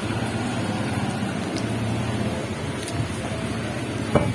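Pink gin poured from a bottle into a glass carafe, over a steady low hum and hiss. About four seconds in there is one sharp knock, as glass or a cup is handled on the floor.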